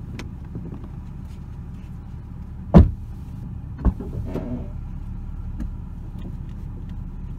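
A car door slams shut about three seconds in, followed a second later by a lighter knock, over a steady low hum.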